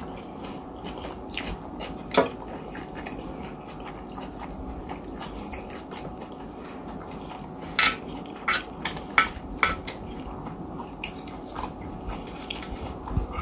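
Close-miked eating: chewing with a spoon clinking and scraping against a plate of rice. One sharp click comes about two seconds in and a run of clicks between about eight and ten seconds.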